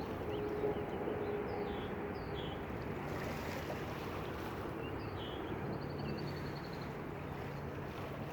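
Steady outdoor wash of lake waves and wind at a shoreline, with short descending bird chirps several times and a brief rapid trill midway.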